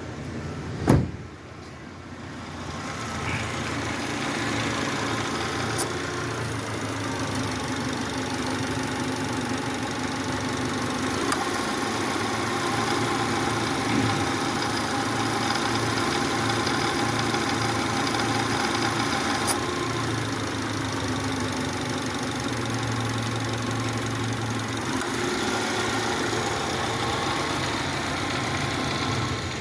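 2011 Subaru Legacy being started: a sharp clunk about a second in, then the engine settles into a steady idle with a few faint clicks. The car is in for a reported noise from its starter and A/C compressor.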